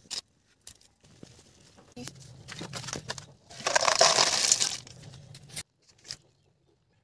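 Boiled river snails and their cooking water poured from a wok into a stainless-steel bowl. A burst of shells clattering and water splashing about four seconds in, with scattered clicks of shells before it.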